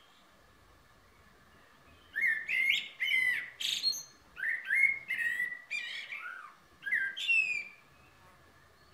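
Male Eurasian blackbird singing: a run of short warbling, whistled phrases starting about two seconds in, several of them ending in high squeaky twitters.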